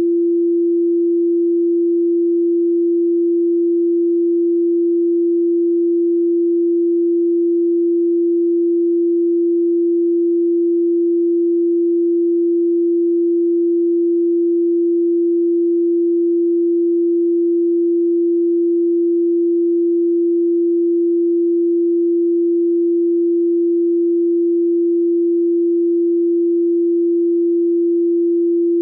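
A steady pure sine tone at 341.3 Hz, electronically generated, holding one pitch without change.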